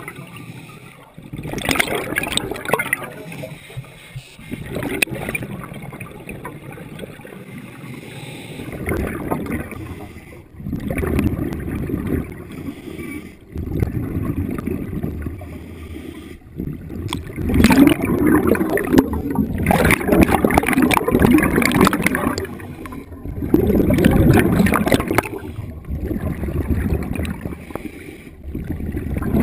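Scuba diver's breathing heard underwater: exhaled bubbles from the regulator gurgling and rushing past in surges every few seconds.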